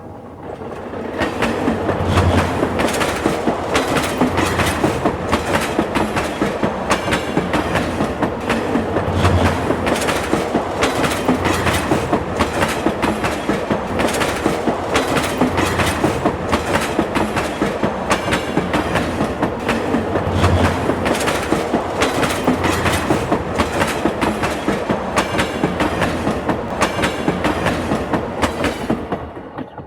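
Train wheels clattering over rail joints in a steady clickety-clack rhythm, with the rumble of the moving train, fading out at the end.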